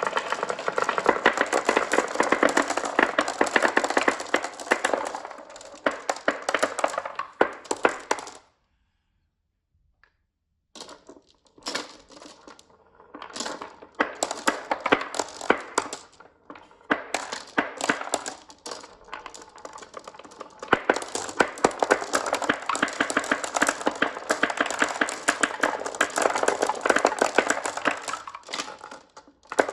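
Many marbles clattering and clicking as they roll down a marble run track, a dense run of small hard clicks. It cuts out to silence for about two seconds a third of the way in, then the clicking starts up again, patchy at first and dense again towards the end.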